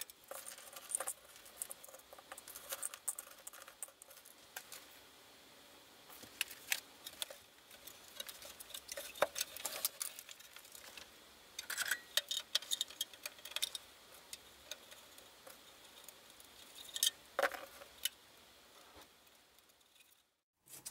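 Small metallic clicks, clinks and rattles as screws are driven into a circuit board inside a Heathkit SB200 amplifier's sheet-metal chassis, with the chassis being handled and tilted. Irregular, in short clusters of taps.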